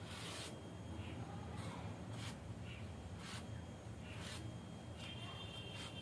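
Drawing strokes on a thermocol (expanded polystyrene) sheet: the drawing tip rubs and scratches across the foam in a series of short strokes, roughly one a second.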